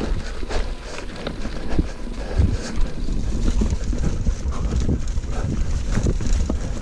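Wind buffeting the microphone over a mountain bike rolling fast down a leaf-covered dirt trail, with tyre noise and scattered knocks and rattles from the bike.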